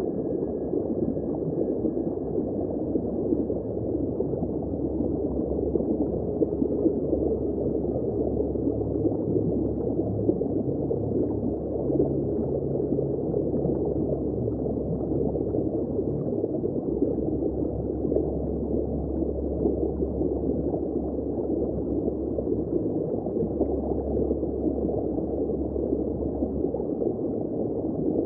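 Underwater ambience: a steady, muffled rush of moving water with a low rumble underneath that swells and fades.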